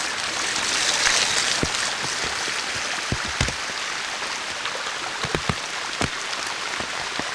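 Steady hiss of rain falling on the forest, a little louder in the first second or so as a mountain bike passes close on the dirt trail. Scattered light knocks are heard throughout.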